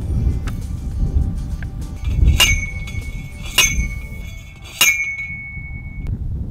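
Three strikes of a manual post driver on a metal fence post, about a second apart, each with a clear metallic clang that rings on briefly after the last strike. Background music plays underneath.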